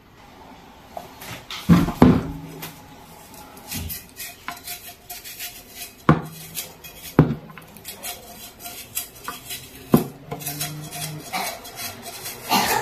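Kitchen utensils and dishes clinking and knocking: a scatter of sharp knocks, several with a brief ringing tone after them, the loudest two about two seconds in, with lighter clinks between.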